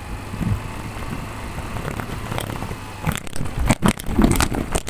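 Suzuki Avenis 125 scooter's single-cylinder engine running on the move, with road and wind noise on the handlebar-mounted phone's microphone. From about three seconds in, a run of sharp clicks and knocks sounds over the rumble.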